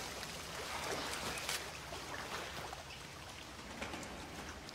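Faint water dripping and trickling, with scattered small drips over a low steady rumble.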